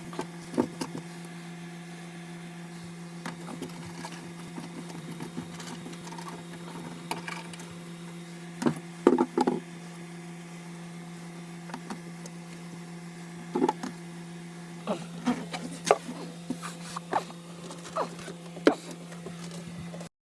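A steady low hum, overlaid by scattered sharp clicks and knocks of handling, with clusters about nine seconds in, near the middle, and more often toward the end.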